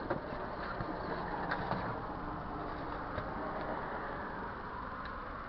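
Steady rustling and scraping of a heavy soft-top fabric being dragged across the vehicle's top frame, with a few faint clicks.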